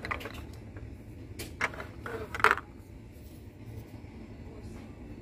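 Glass jars of instant coffee clinking and knocking together as one is taken from a shop shelf: several short knocks in the first three seconds, the loudest about two and a half seconds in, over a steady low hum.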